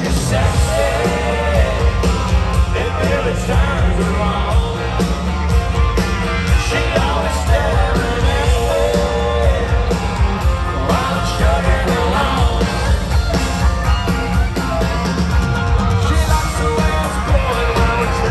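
A live country-rock band plays loudly through a stadium PA, with guitars, drums and a male lead vocal, heard from among the stadium crowd.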